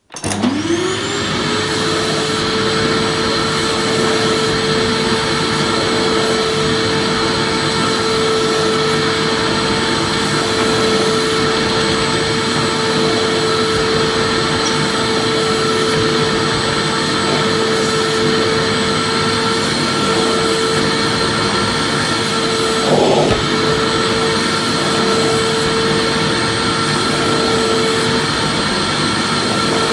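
Vacuum cleaner switched on, its motor spinning up with a quickly rising whine, then running steadily with a constant whine over a loud rushing of air. About three-quarters of the way through there is a brief rough knock in the sound.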